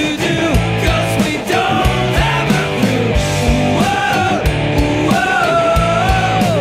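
Rock band playing live: electric guitar, bass guitar and drum kit with a steady beat. A high melodic line bends between notes and holds a long note before sliding down near the end.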